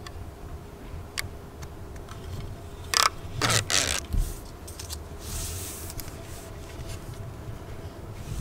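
The red plastic liner is peeled off 3M VHB double-sided tape on a plastic solar-panel mounting bracket. A few short, loud scraping rips come about three seconds in, followed by a softer rustle of the liner being handled.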